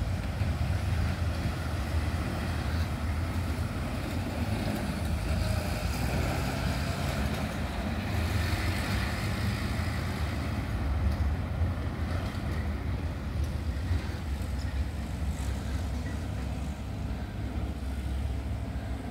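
Light road traffic, a motorcycle and a pickup truck, crossing the bridge over a steady low rumble, with a louder swell about halfway through as a vehicle passes.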